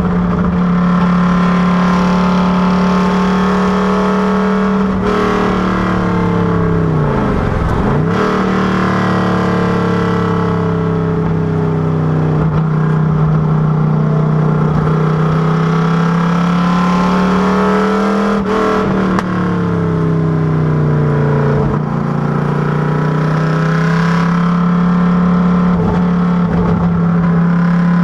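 Factory Five Cobra Daytona Coupé replica's V8 running hard at speed. Its note rises and falls as the revs change, with a steep drop and climb about a quarter of the way in, and further rev changes near the two-thirds mark.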